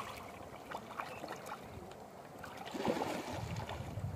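Water lapping at the shore with small splashes of fish breaking the surface, getting louder about three seconds in.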